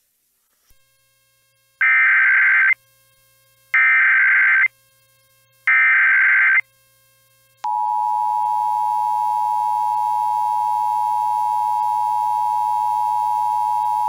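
Three EAS SAME header bursts from NOAA Weather Radio, each about a second of modem-like data tones, coming two seconds apart. Then comes the steady 1050 Hz Weather Radio warning alarm tone, starting about a second after the last burst and holding without a break. Together they are the coded opening of a Child Abduction Emergency (AMBER Alert) broadcast.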